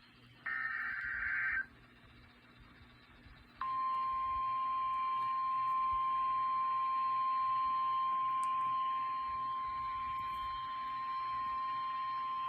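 NOAA Weather Radio Emergency Alert System alert: a one-second burst of the SAME digital header's buzzing data tones, a gap of about two seconds, then the steady single-pitch 1050 Hz warning alarm tone, held for about nine seconds and cutting off just before the end. The sequence marks the start of a new severe weather warning broadcast.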